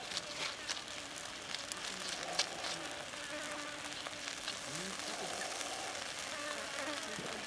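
Sauce-basted chicken wing sizzling over hot charcoal, a steady hiss with scattered sharp crackles.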